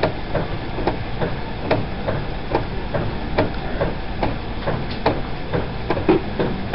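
Dialysis machine running with an even, rhythmic knocking a little more than once a second over a low steady hum, the beat of its roller blood pump turning.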